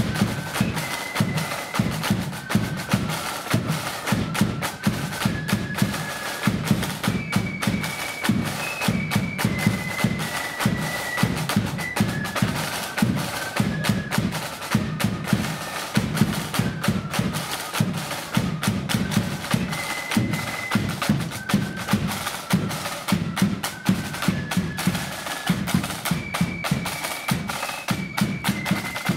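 Marching flute band of the blood-and-thunder kind playing a march: a high flute melody over dense snare drumming and bass drum beats, the tune's phrase repeating.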